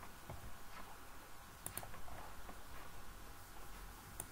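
Computer mouse clicking: a quick pair of clicks a little under two seconds in and another near the end, over faint room noise.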